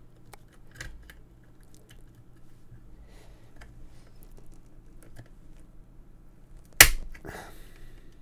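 Snap-fit plastic housing of a Garmin GTM60 traffic cable's power plug being pried open with a flat screwdriver: faint clicks and scrapes, then one loud sharp snap about seven seconds in as the glued seam gives way, followed by a brief rattle.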